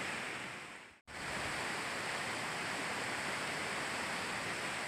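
Steady rushing noise of a fast-flowing river. It fades out and cuts to silence for an instant about a second in, then carries on unchanged.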